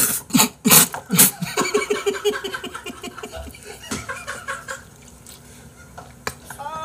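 A man slurps noodles quickly and loudly in a few hard pulls, then breaks into rhythmic laughter that fades off.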